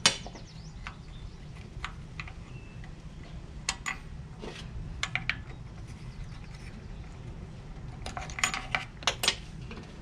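Small metal clicks and taps of a screwdriver prying a metal washer off a reel mower's wheel axle: a sharp click at the start, a few scattered clicks, then a quick run of clicks near the end.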